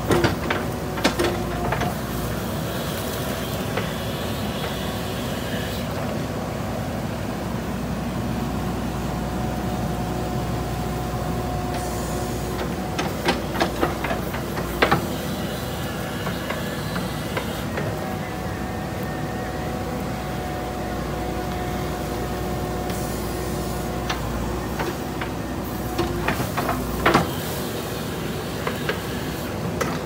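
JCB 3DX backhoe loader's diesel engine running steadily while the backhoe digs, with short sharp knocks of the bucket and boom near the start, a cluster around the middle and again near the end.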